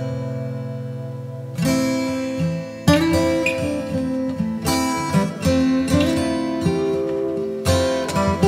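Background music on acoustic guitar: a chord rings and fades, then fresh plucked and strummed chords come in from about a second and a half in.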